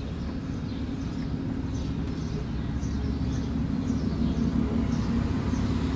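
A city transit bus's diesel engine running, a steady low rumble with a hum that grows slightly louder, with short high bird chirps over it.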